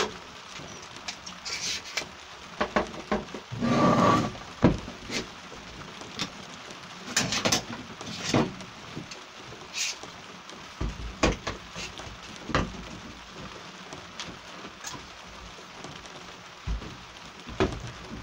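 Scattered knocks and clicks of glued pine boards being handled on a metal table top while a one-handed trigger bar clamp is fitted and tightened across them, with a short scraping rustle about four seconds in and a few dull thuds later.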